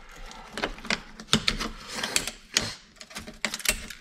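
Screwdriver prying at the plastic-and-metal CD/DVD drive mechanism of a car radio: an irregular run of sharp clicks, taps and short scrapes as parts are worked loose.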